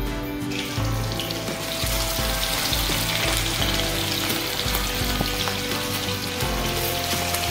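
Fish steaks sizzling in hot oil in a steel kadai, a dense steady hiss of frying that starts about half a second in. Background music plays underneath.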